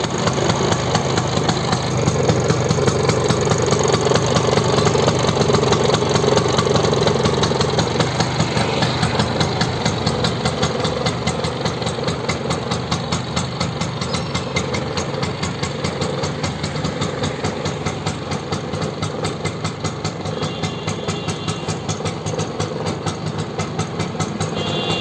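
Old Bajaj Chetak scooter's two-stroke single-cylinder engine running at a steady idle with a fast, even putter.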